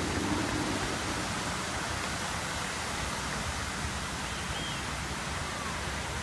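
The Dubai Fountain's water jets spraying high and falling back into the lake: a steady rushing hiss of falling water.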